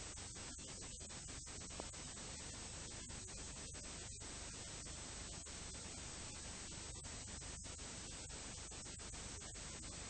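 Steady hiss and static with a faint low hum, broken by many brief dropouts. This is the recording's own background noise on a blank stretch with no sound.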